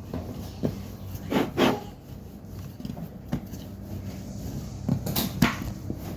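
Scattered knocks and taps of objects being handled, with two louder clusters about a second and a half in and about five seconds in.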